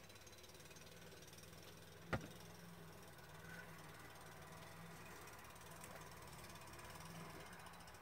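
Near silence with a faint, steady low hum, broken once about two seconds in by a sharp tap as the plastic liquid-glue bottle is set down on the cutting mat.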